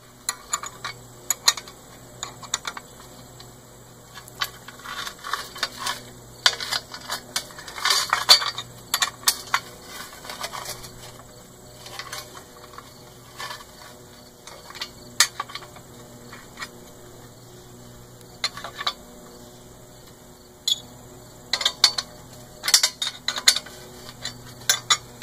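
Irregular metallic clicks, clinks and light knocks of steel cart-frame parts and small bolt hardware being handled and fitted by hand, coming in clusters.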